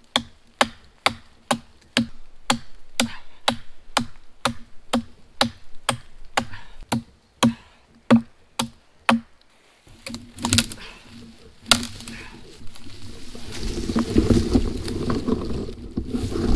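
A small axe chopping wood: quick, even strikes about two a second for roughly nine seconds. After a short pause come two sharp cracks, then a rougher, louder noise.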